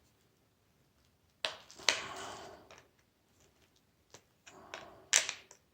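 Metal tool knocking and scraping against a door closer mechanism while trying to turn a stuck threaded part: two sharp knocks about a second and a half in with a scrape after, then a scrape and two more knocks near the end.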